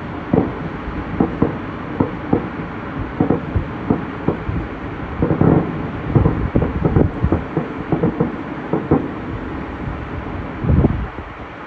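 Fireworks shells bursting in irregular quick succession over a steady low rumble, most densely about halfway through, with one last big boom near the end.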